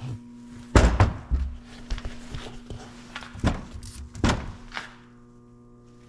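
Heavy metal clunks and knocks as the AC compressor and its bracket are handled and set into place in the engine bay: a loud clunk about a second in, then a few more scattered knocks, over a faint steady hum.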